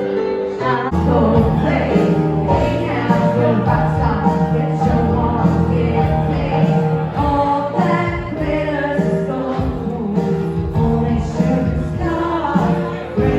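Background music: a song with a singing voice over sustained bass notes.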